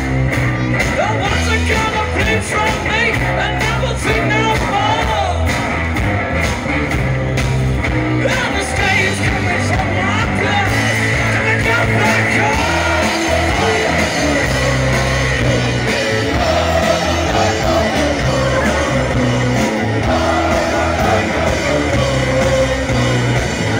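Loud rock music played by a band, with a singing voice over guitar, bass and drums.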